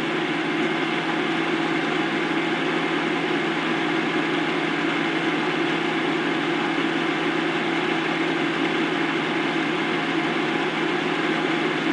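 Steady whirring hum of a stepper-motor driver's cooling fan, with a small two-phase stepper-motor lead-screw linear actuator being stepped slowly at low velocity.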